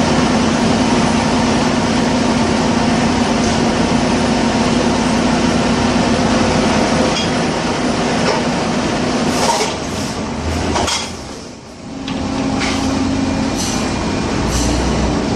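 Drilling rig floor machinery running during a drill-pipe connection: a loud, steady drone with a low hum, and a few sharp metal clanks from about nine seconds in and near the end. The noise briefly dips just before twelve seconds.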